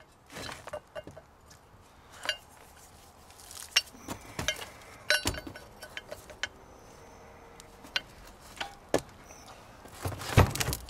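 Irregular metal clinks and knocks from a rusty front axle shaft and its U-joint yoke being handled and turned over on wooden blocks, with a heavier knock near the end.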